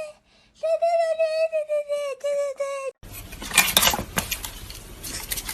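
A pitched sound effect plays in a string of short held notes, then cuts off about three seconds in. A run of sharp clinks and rattles follows.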